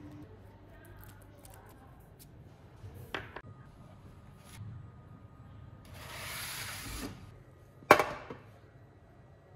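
Faint handling sounds, a short knock about three seconds in, a hiss lasting about a second, then a sharp metallic clatter with a short ring about eight seconds in as a metal baking tray is set down.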